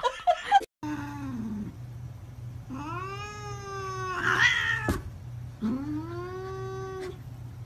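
Domestic cat yowling in a scuffle with another cat: a short falling yowl, then two long drawn-out yowls that rise and then hold, with a sharp click between them.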